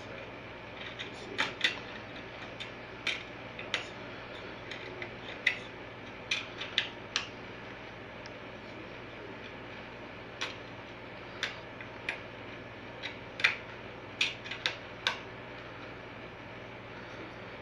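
Plastic DVD cases being handled: irregular sharp clicks and taps, about fifteen of them, over a steady hiss and a low hum.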